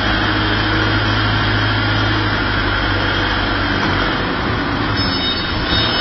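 Forklift running with its hydraulics working as a rotating paper roll clamp turns a paper roll, with a steady mechanical drone. A low hum under it stops about four seconds in, as the rotation ends.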